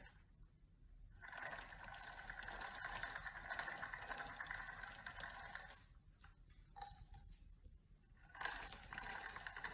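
Small electric motor and gearing of an automatic spinning cat toy whirring as it swings its feather wand around. It starts about a second in, stops for a couple of seconds past the middle, then runs again near the end.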